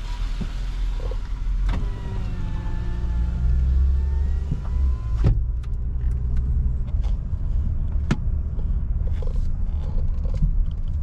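Car rolling slowly, with a steady low engine and road rumble. For about three seconds a rising motor whine plays, ending in a click about five seconds in. After it the outside hiss drops away, as a power window closes.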